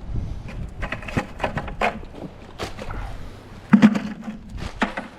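Clicks and knocks from handling a fishing magnet with scrap metal stuck to it, over a low rumble, with the loudest knock about four seconds in.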